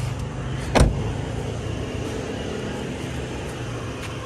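Car driving, a steady low drone of engine and road noise, with one sharp knock a little under a second in.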